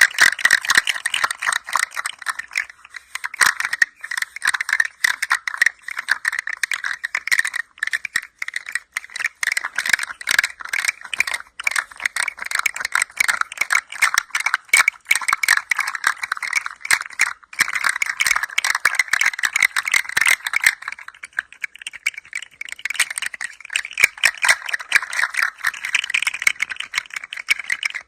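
A hand-played rattling toy being moved steadily, giving a dense, continuous patter of small clicks that thins out briefly a few times.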